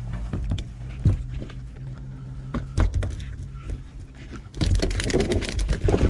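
Handling noises on a metal jetty deck while a landed eel is dealt with and the fishing line cut: a few sharp clicks and knocks, then a louder stretch of scuffling and rattling near the end, over a steady low hum.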